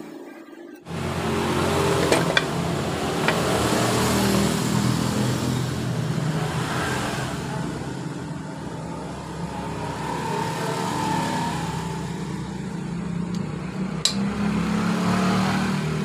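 An engine starts up abruptly about a second in and keeps running steadily, with a few sharp metallic clicks over it.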